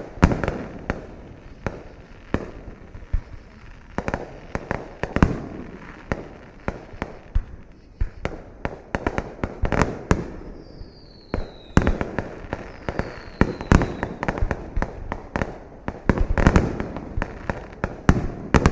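Fireworks display: a rapid, irregular string of loud bangs with crackling between them, and two short falling whistles about halfway through.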